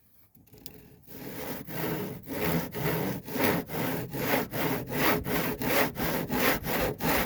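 Handsaw cutting a kerf into an old wooden fence board, in steady back-and-forth strokes about two a second, starting lightly and settling into full strokes about a second in, then stopping at the end.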